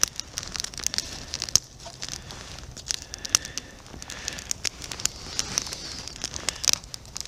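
Small cooking fire crackling, with many irregular sharp pops over a steady high hiss.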